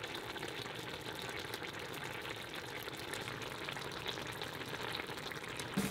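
A braise of canned saury and green-onion kimchi in thick red sauce simmering in the pan: a steady sizzle with a stream of small bubbling pops.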